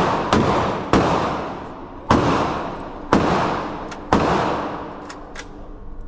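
Gunfire: five single shots at about one-second intervals, each crack echoing and fading away, followed by a couple of faint clicks near the end.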